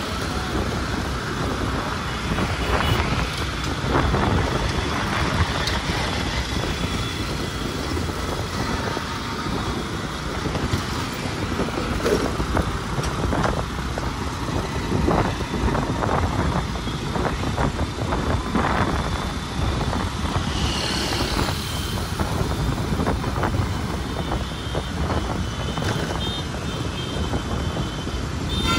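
Road traffic noise while driving through city streets: a steady rumble of engines and tyres with scattered brief knocks.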